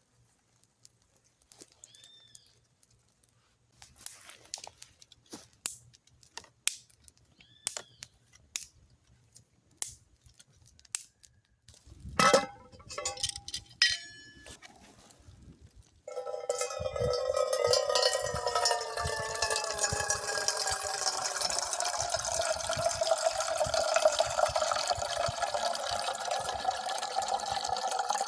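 Light taps and clinks of things being handled, a louder knock about twelve seconds in, then from about sixteen seconds water poured in a steady stream into a vessel, its ringing pitch slowly falling.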